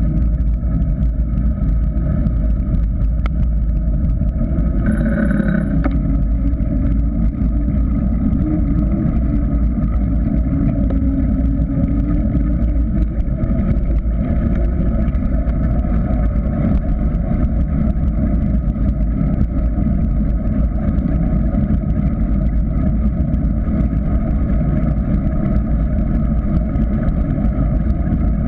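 Steady rumble of wind and tyre noise picked up by a GoPro Hero 3 mounted on a mountain bike rolling downhill over asphalt. A brief higher-pitched sound stands out about five seconds in.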